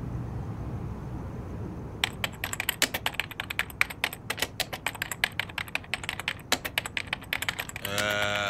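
Typing sound effect: rapid, irregular key clicks that start about two seconds in, after a low hum. Near the end a short held voice-like sound joins them.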